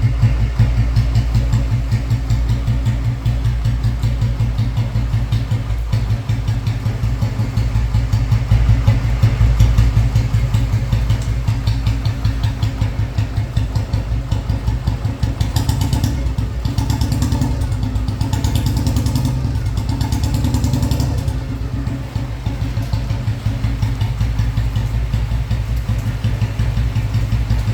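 2000 Royal Enfield Bullet 500's single-cylinder, cast-iron, heavy-crank engine idling with an even, slow thump. Between about halfway and two-thirds through, some extra higher-pitched noise joins the idle for several seconds.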